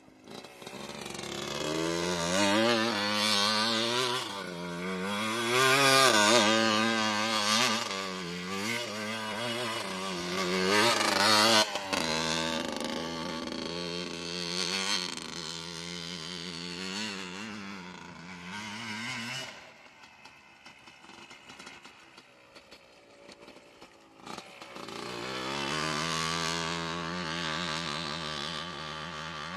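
Yamaha Blaster ATV's single-cylinder two-stroke engine revving up and down as it is ridden, its pitch rising and falling with the throttle. It drops to faint about twenty seconds in, then picks up again for the last few seconds.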